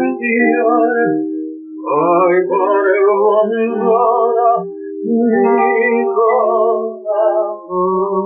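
A man sings a zamba with vibrato, accompanied by acoustic guitars, in three phrases with short breaks between them. It is an early sound-film recording with little treble.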